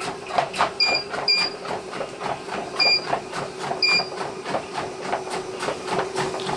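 Home treadmill running with a steady motor hum while a Gordon Setter puppy's paws pad on the moving belt in a quick, even rhythm. Four short high beeps come within the first four seconds.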